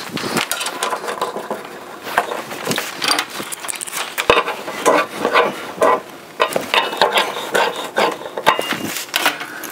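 Stainless steel pipe couplers being handled and threaded onto the ports of a stainless steel UV chamber: a steady run of short metallic clicks, clinks and scrapes.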